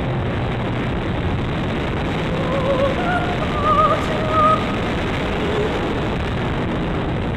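Dynam P-51 RC plane's electric motor and propeller running in flight, with heavy wind rush, heard as a steady dense hiss from the onboard FPV camera. A brief warbling tone wavers through it about three seconds in.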